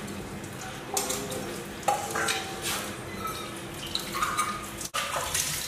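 Steel utensils clinking and scraping together in a stainless-steel sink as they are washed by hand, with a few short ringing clinks, while water runs from the tap.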